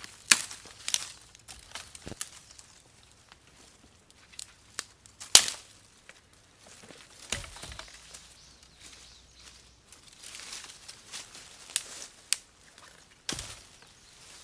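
Dry twigs and leaf litter crunching and snapping in irregular sharp cracks, a few louder ones among fainter crackles.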